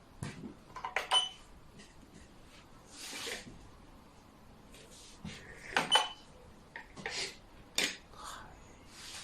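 Xiangqi pieces being placed and knocked on the board: several sharp clacks, a quick double clack about a second in and another near the six-second mark, between short rustling slides of pieces and hands.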